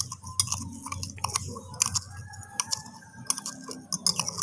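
Metal spoon stirring in a glass, with light irregular clinks against the glass a few times a second, mixing salt into lime juice and sweet soy sauce until the salt dissolves.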